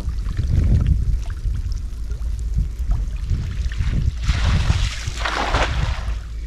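Shallow lagoon water sloshing and splashing as someone moves through it, with a longer, louder splash a little past the middle, under a low rumble.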